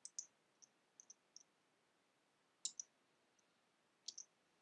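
Near silence broken by about a dozen faint, sharp computer clicks, several in quick pairs, as text is selected and copied from one window to another.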